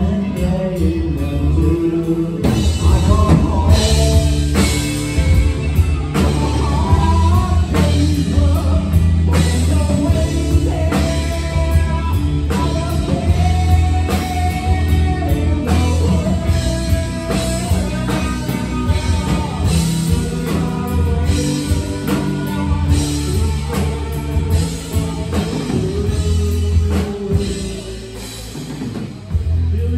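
Live rock band playing: electric guitar, bass guitar and drum kit with lead vocals, loud and steady, easing briefly quieter near the end.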